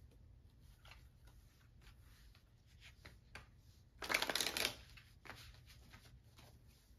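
A deck of tarot cards being shuffled by hand: soft sliding and light ticks of the cards, with a louder flurry of shuffling lasting under a second about four seconds in.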